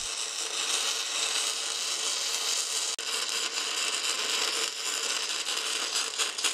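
Wire-feed welder arc crackling and sputtering steadily as a bead is laid on steel.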